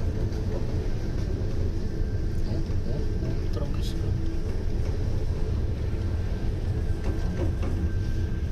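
Steady low rumble aboard a ship working in very rough sea, with indistinct voices faint underneath.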